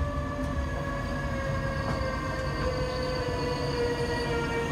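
MÁV class 480 electric locomotive (Bombardier TRAXX) moving slowly past at low speed, its electric drive giving a steady whine of several tones that drift slowly down in pitch, over a low rumble of wheels on rail.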